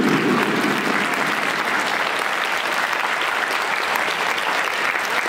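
Large stadium crowd clapping steadily, a dense patter of many hands.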